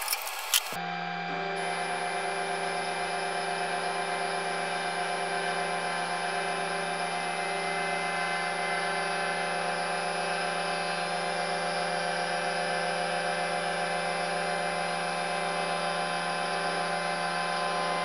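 A 1986 Cortini L300 CNC mill running steadily while an end mill cuts metal, giving an even hum with a high whine on top. A short click about half a second in comes just before it starts.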